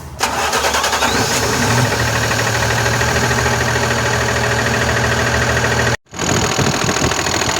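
Volkswagen Constellation 19.320 truck's diesel engine running with a rapid metallic knocking rattle from the front of the engine. A mechanic takes it for play in the camshaft gear knocking against the air compressor; the owner later traces it to the newly fitted air compressor. The sound cuts out briefly about six seconds in.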